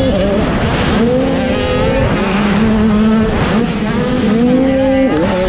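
Dirt bike engine heard on board, revving up and down as the rider accelerates and shifts through the track. The pitch climbs and falls several times, with a sharp drop about five seconds in.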